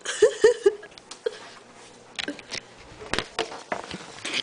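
A dog gives about four short yelps, each falling in pitch, in the first second or so, then scattered sharp clicks and taps follow.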